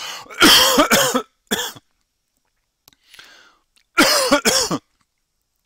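A person coughing in three loud bouts, with the last about four seconds in.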